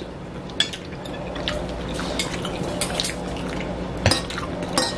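Metal forks and spoons clinking and scraping against ceramic bowls as two people eat, a handful of sharp clinks with the loudest about four seconds in, over a steady low hum.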